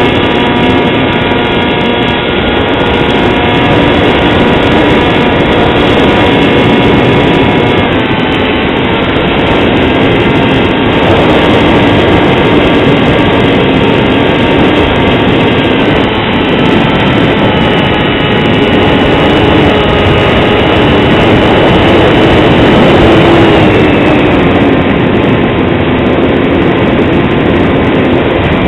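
Motor and propeller of a scratch-built Depron foam RC UAV in flight, recorded from its onboard camera: a steady whine under a loud rush of air. The whine steps down in pitch about eight seconds in, climbs again around sixteen seconds and drops again near twenty-three seconds as the throttle changes.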